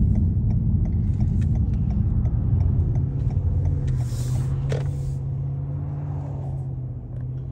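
Car running along, a steady low engine hum with road rumble that eases down slowly toward the end.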